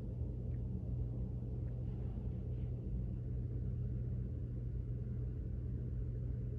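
Steady low hum and rumble with no distinct events.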